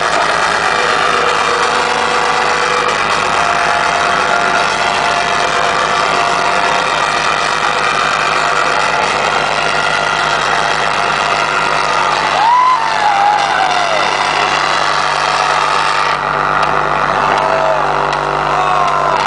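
Loud live electronic dance music from a club sound system, distorted by a phone microphone: a dense, sustained synth wash over a steady low hum. A falling whistle-like tone sounds about two-thirds of the way through.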